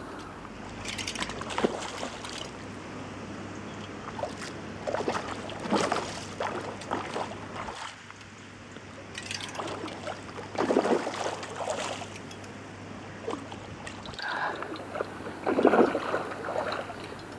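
A hooked trout splashing at the surface in short, irregular bursts while it is played on a fly line, over the steady flow of a shallow river.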